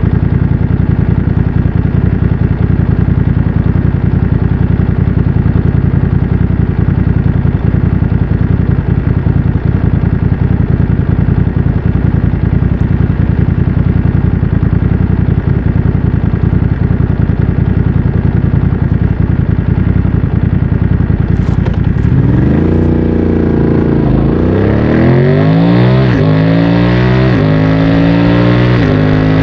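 BMW F900 XR's 895 cc parallel-twin engine, breathing through a MIVV X-M1 aftermarket exhaust, idling steadily. About 22 seconds in it pulls away and accelerates hard, the pitch rising and dropping back through several quick upshifts.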